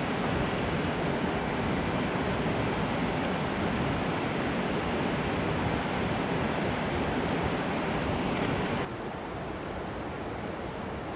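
Steady rush of water pouring over a concrete dam spillway into the basin below. About nine seconds in, it cuts abruptly to a quieter, steady rush.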